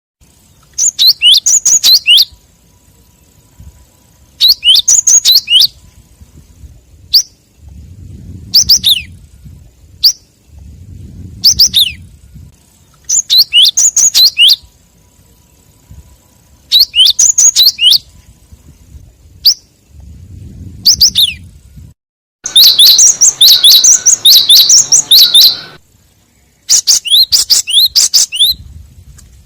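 Gelatik (glatik) bird calls played as a lure: short bursts of rapid, high chirps about every three seconds, with a longer run of chattering about two-thirds of the way through.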